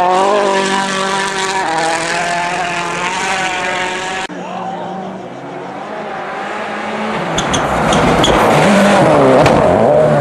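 A turbocharged four-cylinder World Rally Car engine running at high revs on a snow stage, cut off abruptly about four seconds in. Then a second rally car, a Ford Focus WRC, approaches and passes close by, its engine and tyre noise growing loudest near the end, with a few sharp clicks as it nears.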